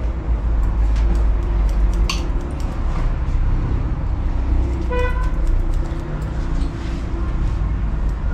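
Street traffic rumbling steadily in the background, with one short car-horn toot about five seconds in. Scattered sharp clicks of scissors snipping hair sound over it.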